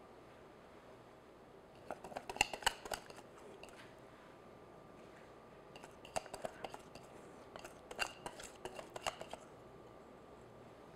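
Light clinks and scrapes on a glass mixing bowl as orange glaze is poured from it, in a short cluster about two seconds in and again from about six to nine seconds in.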